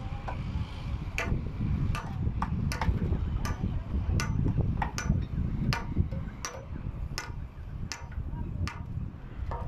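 Hammer blows at an uneven pace, roughly two a second, each a sharp knock with a short ring, over a steady low rumble: typical of nailing timber formwork boards.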